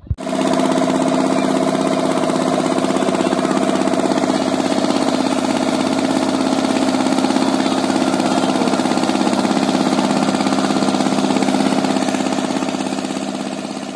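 A boat's engine running loud and steady at constant speed, fading out near the end.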